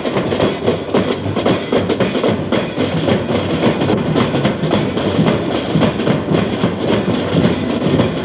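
Marching flute band playing in a street parade, drums beating out a steady march rhythm.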